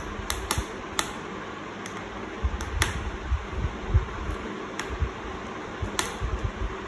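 Sharp, scattered clicks and a few low knocks of hands and tools working on a laptop's plastic case and parts, over a steady background hiss.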